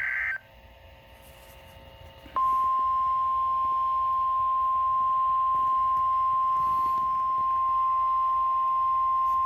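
NOAA Weather Radio alert opening: the last brief screech of a digital SAME header burst, a short lull with faint radio hiss, then a loud, steady single-pitch warning alarm tone beginning about two and a half seconds in and held without a break. The alarm tone marks an incoming severe weather alert.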